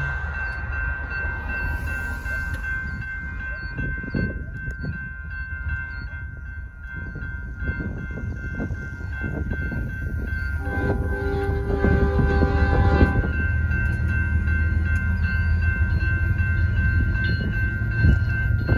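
Railroad crossing warning bell ringing steadily. About ten seconds in, the approaching lead locomotive, a Union Pacific GE AC45CCTE, sounds its multi-chime horn in one blast of about two and a half seconds. The low rumble of the oncoming freight train then builds toward the end.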